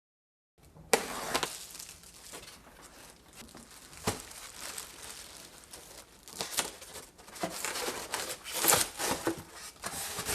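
Packaging crinkling and rustling in irregular spurts as a floor lamp is unpacked from its box, with a few sharp knocks, the first about a second in.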